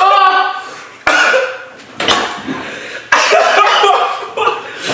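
Coughing and pained, voiced cries from a person whose mouth and throat are burning from a Carolina Reaper and Trinidad Scorpion chili chip: several sudden outbursts about a second apart, each fading away.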